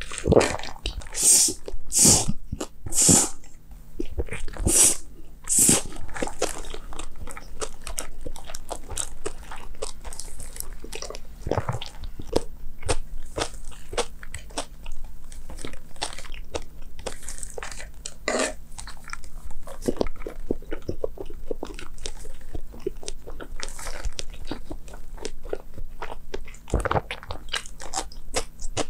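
Close-miked eating of bibim noodles with crunchy vegetable and fruit toppings: crunchy bites and chewing. Several louder bites in the first six seconds, then steady quieter chewing.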